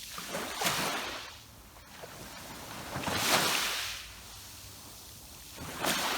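Sea waves washing in on the shore, three surges of rushing water about three seconds apart, the middle one the loudest.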